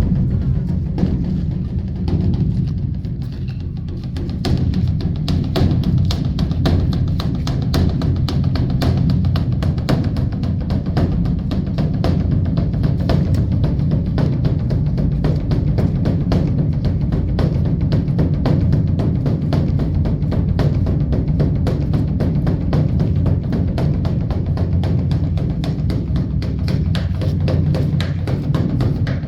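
Large Korean temple dharma drum (beopgo) beaten rapidly and continuously in a rolling rhythm, deep and booming, easing off briefly about two to four seconds in.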